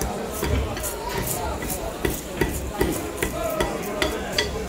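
Knife blade scraping the scales off a small snakehead fish on a wooden chopping block, in quick repeated strokes about two or three a second.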